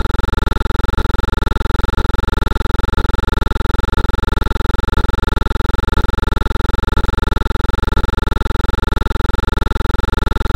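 A steady buzzing drone that pulses rapidly and evenly, with a faint tick about once a second.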